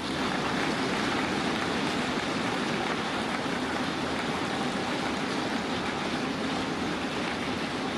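A large crowd applauding: dense, steady clapping that holds at an even level.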